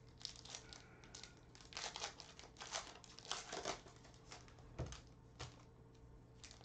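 Foil wrapper of a Panini Optic basketball card pack crinkling and tearing as it is peeled open by hand, in irregular short bursts.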